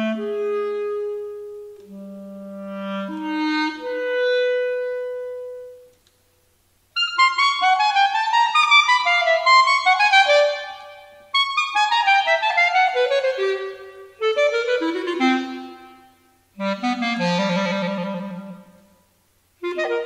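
Solo clarinet playing a modern unaccompanied piece built on bird-call figures. It begins with held low and middle notes. After a short break about six seconds in, it plays rapid runs and flurries of high notes in short bursts with brief pauses, then a low quivering note near the end.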